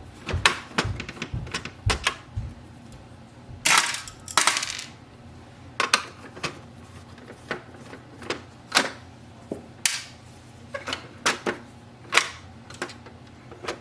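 Irregular clicks and taps of a screwdriver and hands working screws out of a printer's plastic automatic document feeder housing, with a longer scraping rustle about four seconds in.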